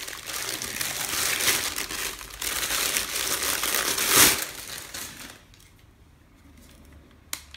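Packaging wrap crinkling as it is pulled off a new cordless drill, a dense rustle for about five seconds that is loudest about four seconds in. Then it dies down to quiet handling, with a single sharp click near the end.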